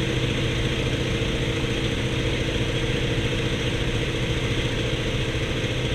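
Antonov An-2's nine-cylinder radial engine running with a steady, unbroken drone.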